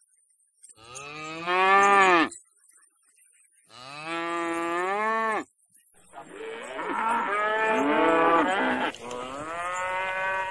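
Domestic cattle mooing: four long moos separated by short pauses, each rising and then falling in pitch. The third moo is the longest.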